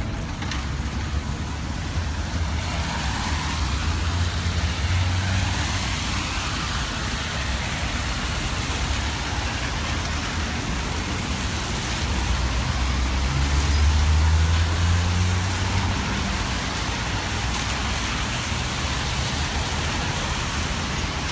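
Street traffic on rain-soaked roads: a steady hiss of tyres and rain on wet tarmac, with a low engine rumble from passing vehicles swelling twice, about four seconds in and again around thirteen seconds in.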